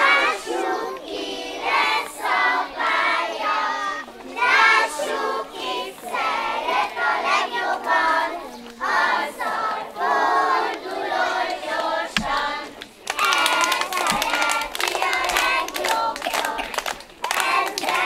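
A group of young children singing a song together in unison. About thirteen seconds in, quick hand clapping starts and carries on under the singing.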